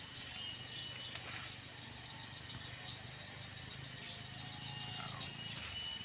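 Steady high-pitched insect shrilling, pulsing rapidly at about ten beats a second through the first half.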